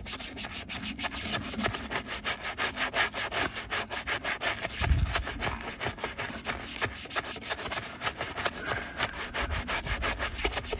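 Stiff-bristled wheel brush scrubbing the wet back of an alloy wheel coated in fallout remover: a fast, rhythmic scratching of quick back-and-forth strokes, several a second. A dull low bump sounds about halfway through.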